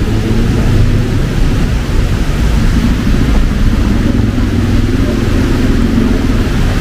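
Road traffic in heavy rain: a steady low rumble of vehicle engines and tyres on the wet road under a continuous hiss of rain.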